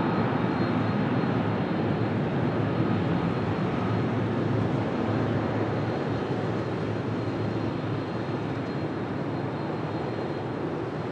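Jet airliner engines: a steady rushing noise with a faint high whine, slowly fading.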